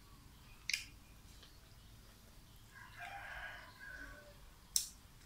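A rooster crowing once, faintly, about three seconds in, the call lasting under two seconds. Two sharp clicks of eating at the table, one near the start and a louder one near the end.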